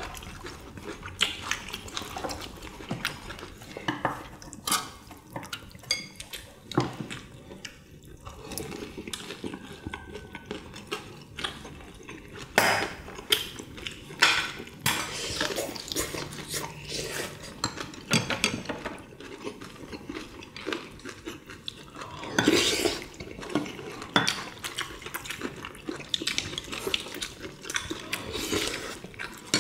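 Eating utensils clicking and scraping against bowls and a pot of kimchi stew, in irregular clinks, with wet slurping and mouth sounds in between.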